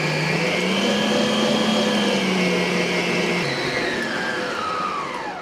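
Stand mixer motor running at high speed, fifth of six speeds, its flat beater beating thick cream cheese frosting in a steel bowl. Near the end the motor winds down with a falling whine and stops.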